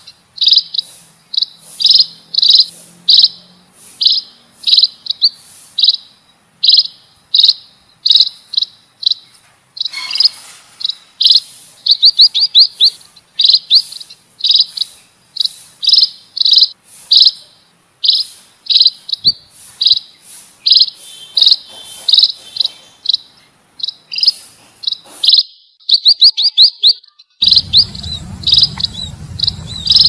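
Munia lure calls: loud, high, thin chirps repeated over and over, often in quick runs of several notes, one or two groups a second. A low rumble joins near the end.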